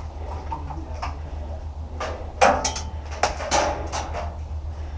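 Two short clusters of sharp clicks and knocks, about two seconds in and about three and a half seconds in, over a steady low rumble.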